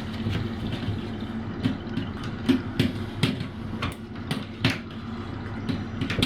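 Irregular clicks and knocks of plastic fittings being handled and worked loose as a shower-hose attachment is taken off a mixer tap, over a steady low hum.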